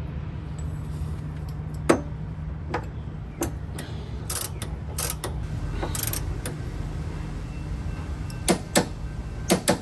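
Wrenches and metal suspension hardware clicking and clinking as bolts are worked on: scattered sharp metallic clicks, the loudest ones in quick pairs near the end, over a steady low hum.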